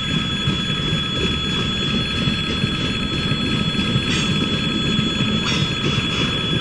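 Freight train of container wagons and boxcars rolling through a level crossing, its wheels rumbling steadily on the rails with brief hissing surges about four and five and a half seconds in. Over it the crossing's electric warning bell rings on without a break.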